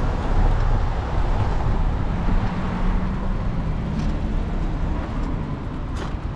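City street traffic: a steady rush of road noise with the low hum of passing vehicle engines, and a couple of short clicks about four and six seconds in.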